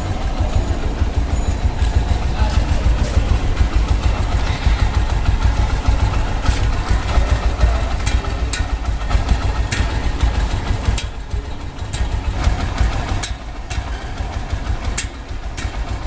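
TVS Max motorcycle engine idling with a terrible knocking noise from the cylinder-head cam, heard as irregular sharp clicks over the steady low running. The mechanic puts it down to the cam taking a jolt at too low an idle speed, which he cures by raising the idle on the carburettor.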